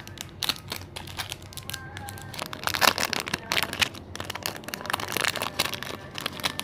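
Clear plastic packaging crinkling and rustling as a small card-backed item is handled and slid out of its resealable bag, with a dense run of crackles in the middle.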